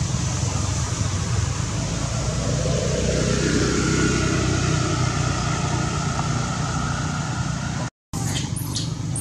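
A motor vehicle running nearby: a steady rumble with hiss, its engine note dipping slightly a few seconds in and then holding. It cuts off abruptly near the end, and short high chirping calls follow.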